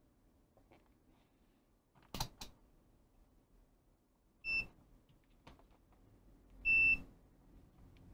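Multimeter continuity beeper sounding twice, a short beep about four and a half seconds in and a longer, louder one near seven seconds, as the repaired soldering-gun trigger switch closes the circuit. Two quick clicks come about two seconds in.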